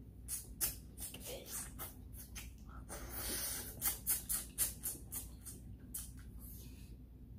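Close-miked mouth sounds of a person eating fufu and meat by hand: a string of sharp wet smacks and chewing clicks, with one longer drawn-out mouth noise about three seconds in.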